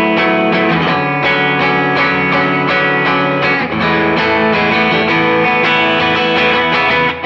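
Fender Telecaster electric guitar playing quick, evenly picked arpeggios through twinkly extended chords in A major (vi–IV–I–iii–IV, F#m11 moving to Amaj7sus2), the open B and high E strings ringing over each shape. The chord changes about a second in.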